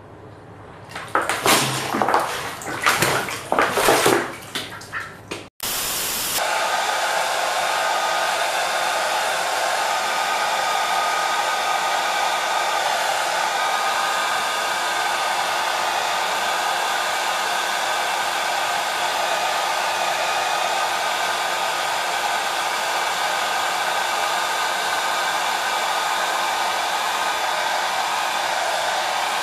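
A duck splashing in a plastic basin of water in loud, irregular bursts for a few seconds, then, after a sudden cut, a handheld hair dryer blowing steadily for the rest of the time.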